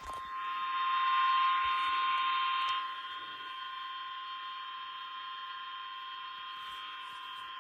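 Emergency alert warning alarm tone: one long, steady electronic tone just above 1 kHz, the 1050 Hz alert tone that sounds before a weather warning message, with fainter higher tones over it that are strongest in the first three seconds.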